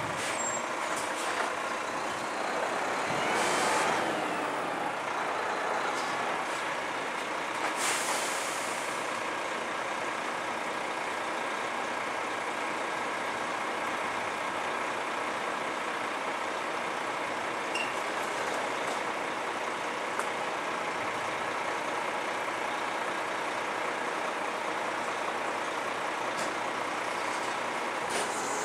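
Front-lift garbage truck's diesel engine running steadily as it pulls up and stops, with brief air hisses a few seconds in, the loudest about eight seconds in.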